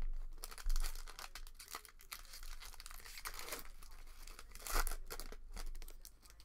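Foil trading-card pack being crinkled and torn open by hand, an irregular crackling that is loudest about five seconds in.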